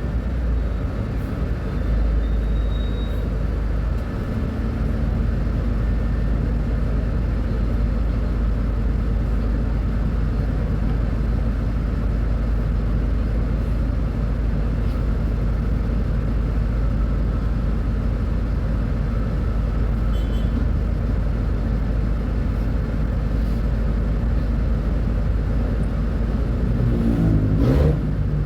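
Diesel engine of a Mercedes-Benz O500U city bus with Voith automatic transmission running steadily with a deep, even rumble. Near the end a short sweep in pitch and a brief sharp sound cut across the engine note.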